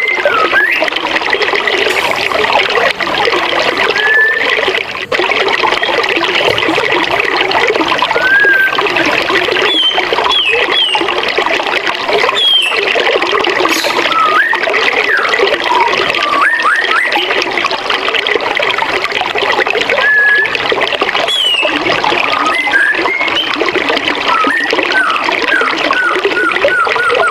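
Forest stream or small waterfall rushing steadily, with songbirds whistling short notes over it, some sliding down and some rising in pitch. Near the end a bird gives a quick run of repeated notes, about four a second.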